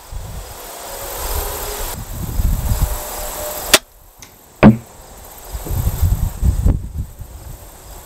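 Wind buffeting the microphone, broken about halfway through by a crossbow shot: a sharp crack, then a second, louder sharp thwack just under a second later, before the wind noise comes back.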